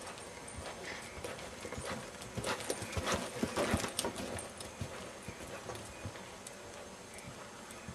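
Hoofbeats of a ridden horse moving over sand arena footing: a quick, irregular run of hoof strikes that is loudest around the middle.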